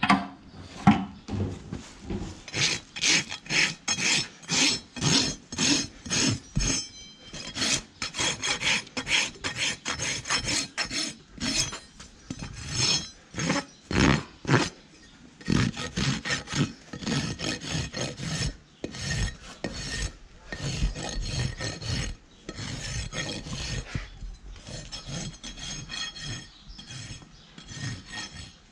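Steel hoof rasp scraping across a young horse's hoof in repeated strokes, about two a second, trimming the sole and wall so an abscess can be found and cleaned out.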